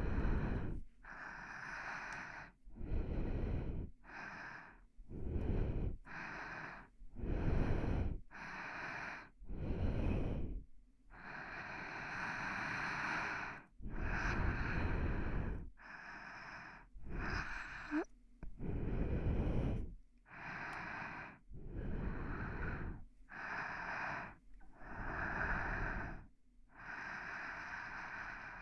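A person breathing slowly and close to the microphone, for ASMR sleep sounds: breaths of about a second each, alternating inhale and exhale, with short pauses between them.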